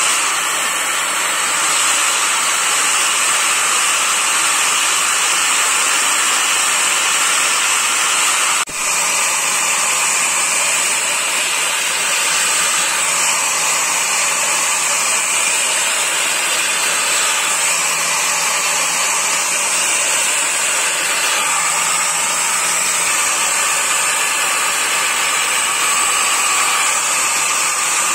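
Handheld electric angle grinder running steadily with an abrasive disc pressed against a billhook's steel blade, a continuous high whine with grinding hiss as the edge is ground and polished. There is a momentary break about nine seconds in.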